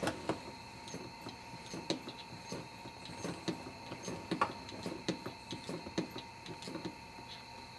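Light, irregular clicks and creaks from a cowboy boot working a vehicle's foot pedal, over a faint steady high tone.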